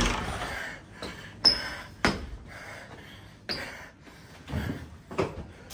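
Handling noise from a phone camera being picked up and moved around: a handful of irregular short knocks and rustles in a small room.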